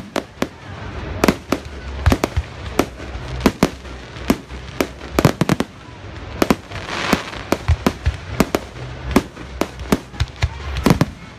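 Aerial fireworks bursting in a rapid, irregular series of sharp bangs, several a second, with a crackling hiss about seven seconds in.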